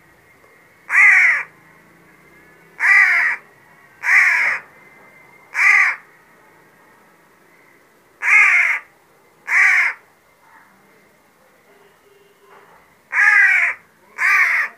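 Young crow cawing: eight harsh, half-second calls spaced one to two seconds apart, with a pause after the fourth and another after the sixth. These are the begging calls of a hungry young crow being fed from a hand.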